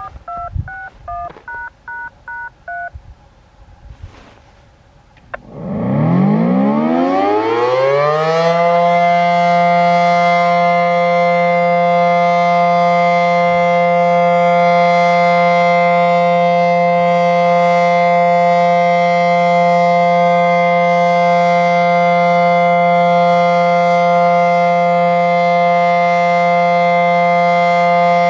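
A quick string of touch-tone (DTMF) beeps. About five seconds in, a Federal Signal SD-10 outdoor warning siren starts up, winding up in pitch over about three seconds. It then holds one loud steady tone on the Alert test cycle.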